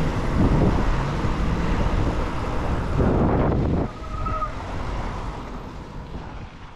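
Road traffic noise heard from a bicycle on a wet road: car engines and tyre noise with a low rumble. It drops about four seconds in and fades out near the end.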